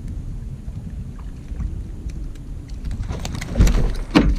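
Wind rumbling on the microphone over a small boat at sea. About three seconds in comes a burst of loud splashes and knocks as a ling is hauled out of the water over the boat's side.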